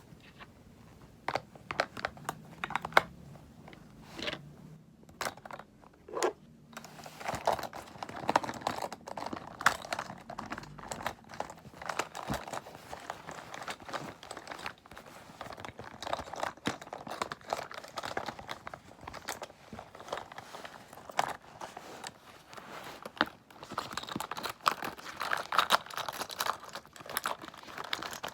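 Cosmetics handled close to the microphone for ASMR: quick irregular tapping and clicking with crinkly rustling, sparse at first and growing busier and more continuous after a few seconds.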